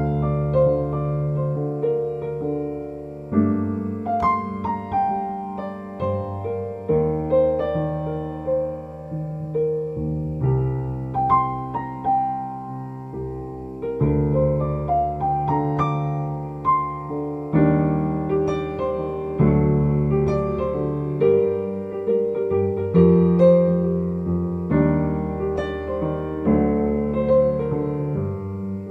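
Slow background piano music: held chords in the low range with single notes struck above them.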